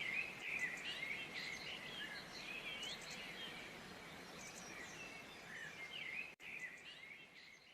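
Several small birds chirping and singing at once: many short, quick whistled notes and rising glides over a steady background hiss. The sound cuts out for an instant about six seconds in and fades away near the end.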